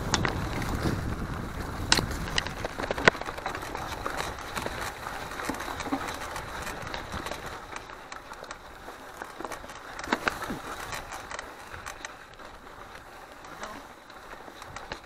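Mountain bike rolling over a rough trail: a steady rush of noise, louder for the first few seconds, with sharp rattles and knocks from the bike a few times.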